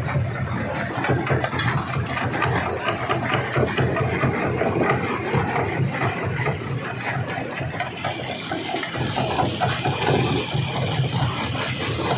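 Stone crusher running: a steady low machine hum under a dense, irregular clatter of rock being broken and knocking about.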